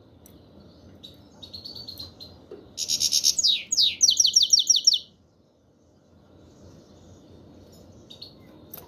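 Caged black-headed European goldfinch calling its 'chir chir': a soft twitter, then a loud burst of rapid, high chirps lasting about two seconds with two downward-sweeping notes in the middle, and a lone soft call near the end.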